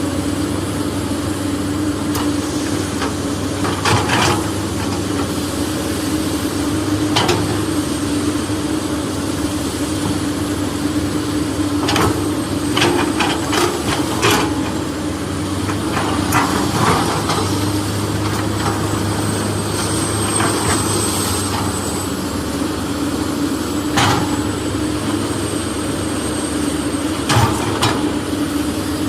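Steady machine drone, like an engine or motor running, with scattered sharp knocks and clatters every few seconds.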